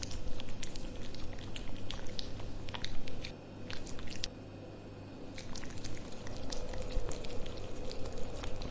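A cat eating wet cat food from a saucer: irregular wet chewing clicks and smacks, easing off for a moment a little before halfway, over a steady low hum.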